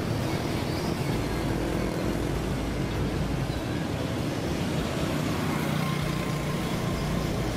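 Street traffic: a steady rumble of motorbikes and cars going by. One motorbike engine passes close about two-thirds of the way in.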